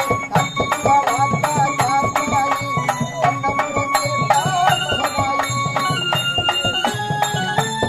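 Traditional-style music: a steady percussion beat with a wavering melody over it.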